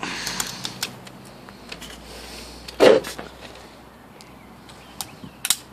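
Weihrauch HW45 spring-piston air pistol being handled and reloaded: light clicks from the action, then one loud clunk about three seconds in, with two more sharp clicks near the end.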